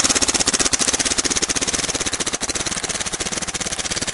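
Dangerous Power G3 paintball marker firing a continuous fast stream of shots, fed by a Pinokio loader, in its stock board's secret mode; a rate-of-fire meter read about 16 balls per second.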